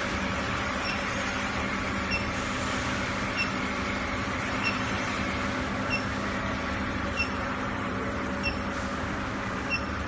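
Small induction melting furnace running while it melts platinum: a steady hum over an even hiss, with a short high beep repeating about every second and a quarter.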